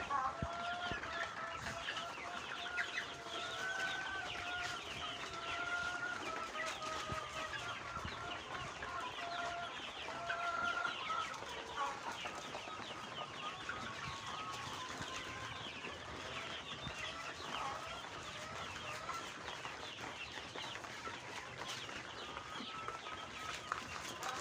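A flock of chickens calling continuously: a dense chatter of many short, high peeps and clucks overlapping, with longer drawn-out calls standing out over the first half.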